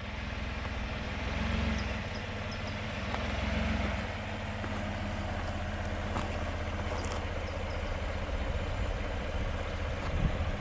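Chevrolet Colorado ZR2 pickup's engine running at low speed as the truck crawls over a rocky dirt trail, the engine note swelling briefly twice in the first few seconds.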